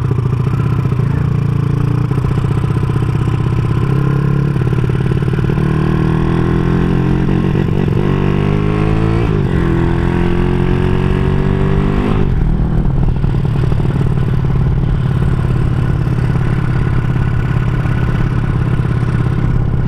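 Honda Supra underbone motorcycle with a 200cc bored-out single-cylinder engine and a CJDW aftermarket exhaust, running under way. Midway its revs climb twice, each climb dropping off at a gear change, then it settles to a steady cruise.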